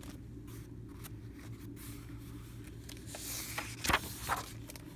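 A picture book's page being handled and turned, paper rustling for about a second and a half near the end with a sharp bump in the middle of it, over a low steady hum.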